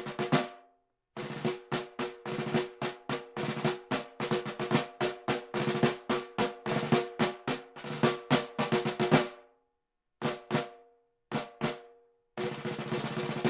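Snare drum played in fast runs of strokes, each hit ringing with a pitched tone. The run breaks off about nine seconds in, followed by two short pairs of hits and a brief last run near the end.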